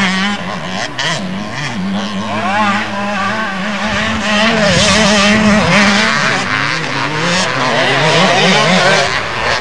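Motocross bikes' engines running on a dirt track, their pitch rising and falling again and again as the riders work the throttle through the course.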